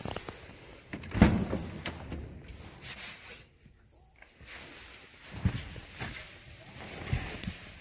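Handling noise from a phone camera: rubs and knocks, the loudest a single thump about a second in, with smaller thumps later. No engine is running.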